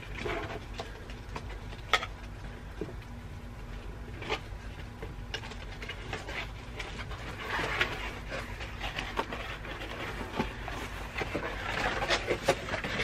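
Hands working a doll free of its box packaging and the ties around its ankles: scattered small clicks and plastic rustling, busier in the second half.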